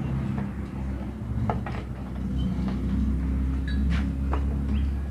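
A steady low hum with a few scattered clicks and knocks from hands and tools working on an engine.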